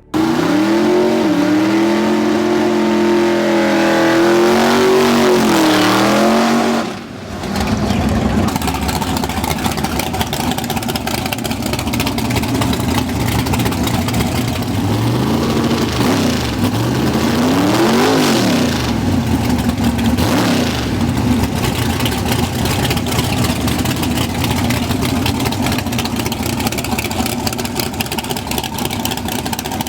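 Drag race car engines running loudly, a held steady note for the first several seconds, then after a brief dip a rougher engine with revs rising and falling several times.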